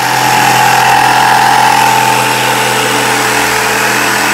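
Corded electric jigsaw running steadily and loudly as it saws through a sheet of plywood.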